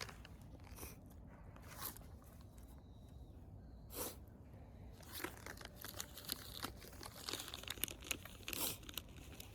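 Irregular crinkling and crunching, with scattered sharp crackles that grow denser in the second half.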